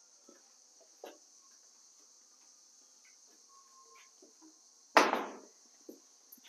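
A faint, steady, high-pitched insect chorus, with a soft click about a second in and one loud knock about five seconds in that dies away quickly.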